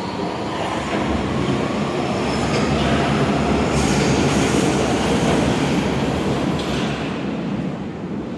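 Hamburg U-Bahn train running through the underground station: a rumble with rail hiss that grows louder to a peak around the middle and then fades away.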